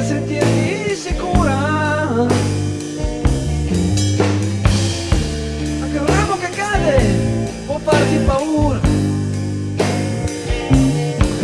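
Rock song with drum kit, bass and chords under a wavering lead melody whose notes bend up and down.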